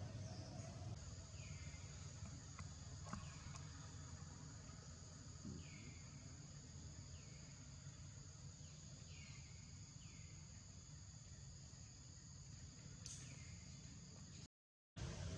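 Insects drone steadily at a high pitch outdoors, with faint, short falling chirps repeating irregularly every second or two. Near the end the sound cuts out completely for about half a second.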